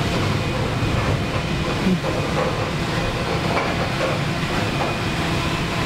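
Steady factory-floor noise: a low hum of ventilation and machinery with a hiss over it and a few faint scattered clatters.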